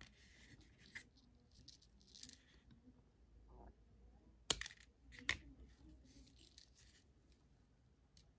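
Two sharp snips of a small steel line cutter trimming the tag end of monofilament fishing line at a knot on a swivel, under a second apart, with faint rustling of the line handled between fingers.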